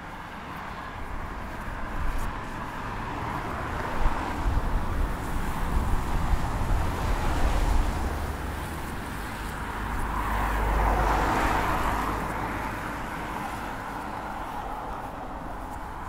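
Gusts of wind buffeting the microphone: a low, uneven rumble that builds over the first few seconds, then a swell of rushing noise about two-thirds of the way through that fades again.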